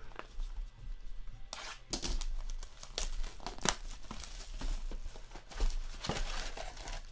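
Clear plastic shrink wrap being torn and crinkled off a cardboard box of trading cards by hand, in a run of sharp crackling rasps that starts about a second and a half in.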